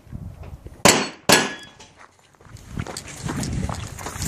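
Two pistol shots fired in quick succession, about half a second apart: a double tap.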